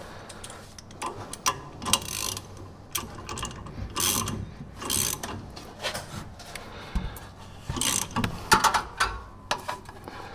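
Hand ratchet wrench clicking in repeated strokes, about one a second, as it turns a nut on a stud-installer tool to draw a new wheel stud into the hub.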